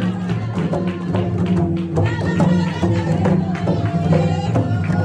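Folk music for a dance: frequent drum strokes over a steady low drone, with a melody line on top.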